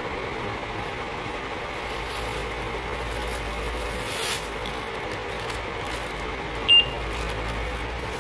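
Steady shop background hum with a plastic carrier bag crinkling about halfway through as items are bagged at a checkout, then one short high electronic beep from the checkout equipment, the loudest sound, about two-thirds of the way in.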